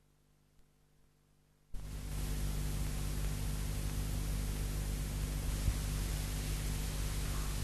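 Silence, then about two seconds in a steady hiss of recording static with a faint low hum sets in and runs on evenly: the background noise of the ghost-hunting audio recording before any scream.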